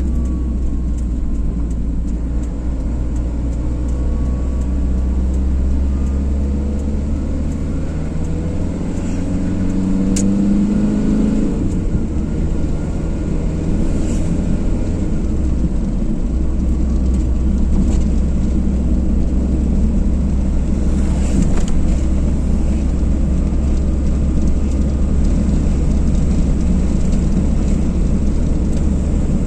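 Car driving along the road: steady engine and tyre rumble, with the engine note rising as it accelerates about eight to eleven seconds in, then dropping away.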